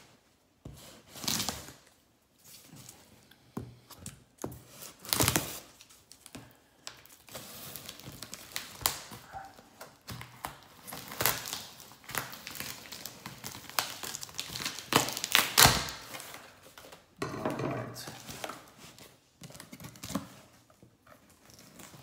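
A cardboard shipping box being cut open with a small knife and unpacked: tape tearing and packing material crinkling in irregular spells.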